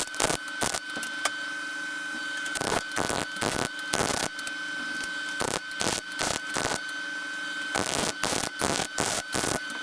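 Welding arc crackling on thin 24-gauge sheet steel, laying a butt weld as a series of short bursts with a few longer steady runs, over a steady high whine. The welder finds the metal is getting too hot and warping.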